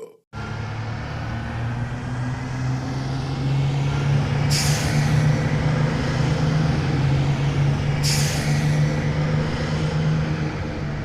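Heavy vehicle engine idling with a steady low hum, with two sharp hisses of released air, about four and eight seconds in, like an air brake.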